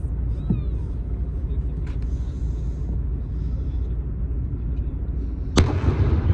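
Steady low rumble of a cruise boat's engine and the wind on the water. About five and a half seconds in comes a single loud bang that trails off in an echo.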